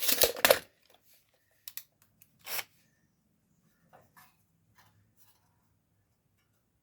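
A loud burst of noise at the start, then a few short clicks and one brief scrape with quiet gaps between, as metal panel parts and hand tools are handled.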